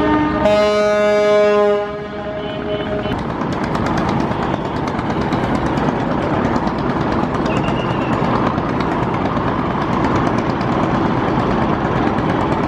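A passenger river launch's horn sounds one loud, steady blast of about a second and a half, starting about half a second in and cutting off sharply. After it comes a steady wash of engine and churning-water noise.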